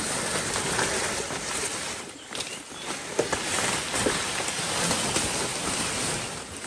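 Large palm fronds rustling and swishing as one is carried over and laid down on the ground, with scattered crackles and snaps of the leaflets.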